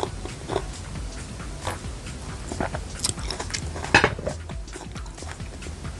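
A person chewing and biting grilled skewered street food close to the microphone, with irregular wet mouth smacks and clicks; the loudest smack comes about four seconds in.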